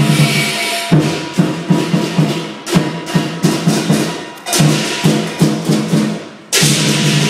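Lion dance percussion: drum strokes with cymbal clashes beating a steady rhythm of about three a second. It breaks off briefly, then bursts into a loud, sustained crash near the end.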